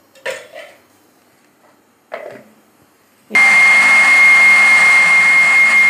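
Super Star electric blender switched on about three seconds in, running at a steady speed with a high whine as it blends milk and bread crumbs into a smooth mixture. A couple of brief faint knocks come before it.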